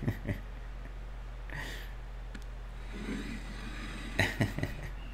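Quiet stretch over a steady low hum, with a few faint clicks near the start and again after about four seconds, and soft breath sounds in between.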